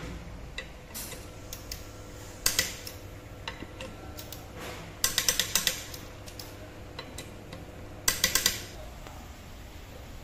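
Sharp clicks and clinks of hard, metallic-sounding objects: a few single knocks, then two short runs of quick clicks about five and eight seconds in.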